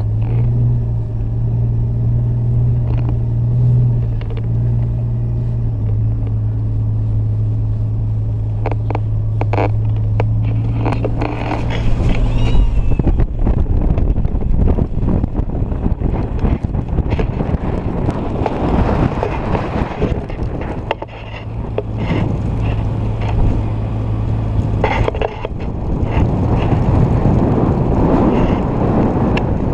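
Jeep Wrangler on 37-inch tyres driving through deep snow: a steady low engine drone. About a third of the way in, and again near the end, it is covered by a rushing noise from the tyres pushing through the snow.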